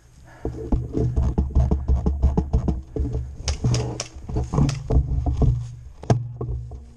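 An airsoft player's running footsteps on grass: irregular thumps and rustles, several a second, with the jolting of carried gear.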